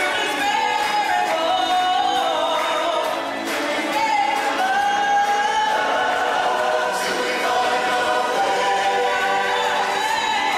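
Stage-show music with a chorus of voices singing several held, wavering lines together.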